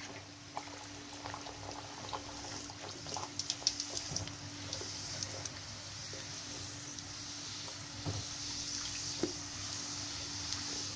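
Bhatura dough deep-frying in very hot oil in a kadhai: steady sizzling with sharp crackling pops, densest in the first few seconds, then settling into a steadier sizzle.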